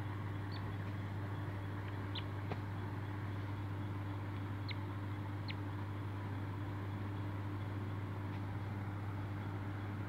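A steady low hum with a constant hiss, and several brief, faint high chirps in the first half.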